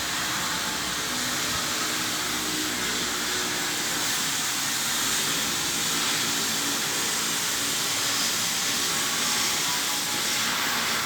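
A steady, even hiss that runs without a break, with a faint low hum beneath it in the first few seconds.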